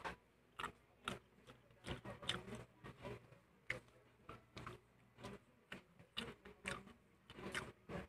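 Close-miked eating sounds: irregular short wet clicks and smacks of a mouth chewing fried chicken and rice, with soft sounds of fingers pressing rice together on the plate.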